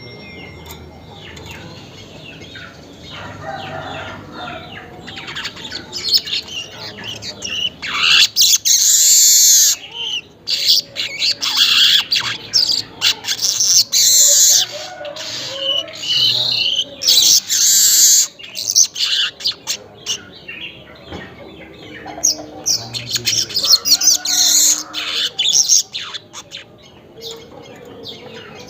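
Manyar weaver bird singing a fast, buzzy chattering song in repeated loud bursts. It is quieter at first, loudest through the middle, and trails off into scattered chatter near the end.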